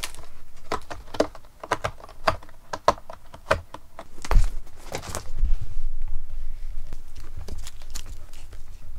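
A cat's claws scratching and clicking on a corrugated cardboard scratcher as it bats at a toy: a quick, uneven run of scratchy clicks. About four and a half seconds in comes a heavy thump, then low rumbling.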